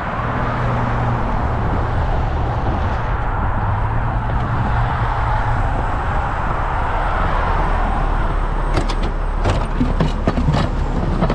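Heavy diesel truck engine idling steadily, with highway traffic noise. From about nine seconds in, clanks and knocks of gear being moved around in the truck's metal side compartment.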